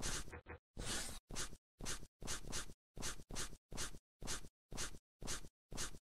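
Pen scratching on paper in quick short strokes, about three a second, each stroke stopping abruptly into silence.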